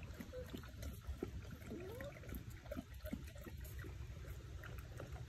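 Basset hound puppies tussling over a plush toy: a few faint, short rising whimpers, one about two seconds in, with small scuffling clicks over a low rumble.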